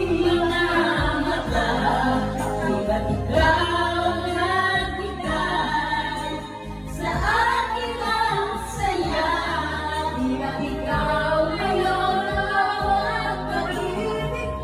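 Several women singing together into karaoke microphones over a music backing track.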